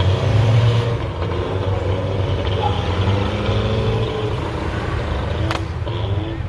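Off-road truck engines running under load, a steady low drone that rises and falls a little in pitch, as a caged rock crawler tows a Toyota pickup up a muddy hill.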